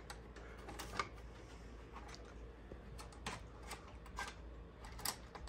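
Faint, irregular clicks and taps, about half a dozen, as an O gauge model diesel locomotive's wheels are set down and worked onto the track rails.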